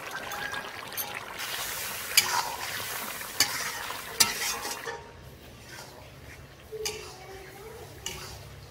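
A flat metal spatula stirs chicken and spices in an iron karahi over sizzling oil, with several sharp clinks of the spatula against the pan. About halfway through the sizzling and scraping drop to a quieter level.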